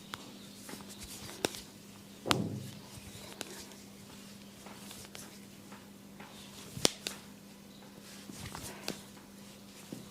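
Head and neck massage handling sounds: irregular sharp clicks and knocks with soft rustling of hands on skin and hair. The loudest knock, with a short low thud, comes about two seconds in, and another sharp one near seven seconds. A steady low hum runs underneath.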